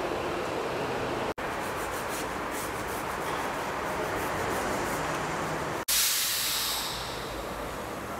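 Steady workshop hiss broken by two brief cut-outs, about a second and a half and six seconds in; right after the second, a louder burst of hissing compressed air that fades over about a second.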